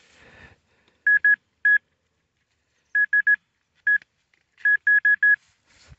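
Handheld metal-detector pinpointer probing a dig hole, giving short, identical high-pitched beeps in quick groups of one to four, its signal for metal in the soil. Faint scraping of dirt sounds between the beeps.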